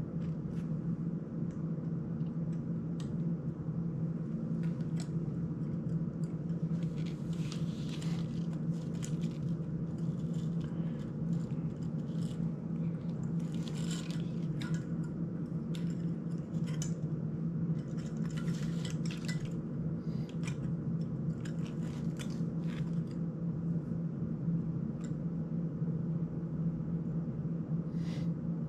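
Scattered small clicks, taps and rattles of a small FPV quadcopter and its parts being handled and worked on by hand, coming in clusters, over a steady low hum.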